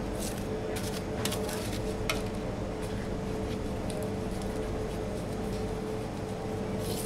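Fingers pressing tart dough into small foil tart tins, with scattered light crinkles and taps of the foil. Under it runs a steady machine hum with a constant mid-pitched tone.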